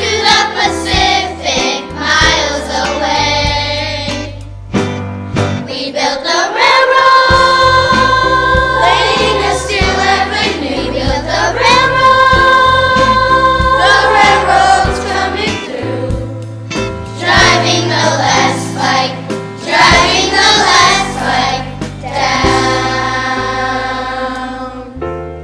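A group of children singing a song together over an instrumental backing, with two long held notes in the middle.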